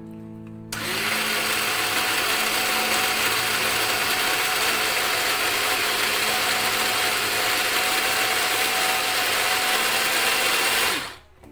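Small electric mini chopper running, its blade grinding olives with thyme and a little olive oil into a paste. It starts about a second in with a rising whir, runs loud and steady for about ten seconds, and stops near the end.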